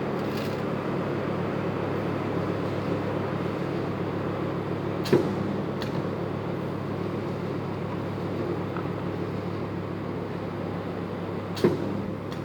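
Spot welding machine humming steadily, with sharp snaps as it fires: a loud one about five seconds in, a fainter one just after, and another loud one near the end.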